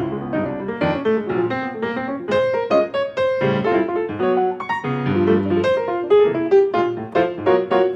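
Background piano music, a quick run of notes over sustained chords.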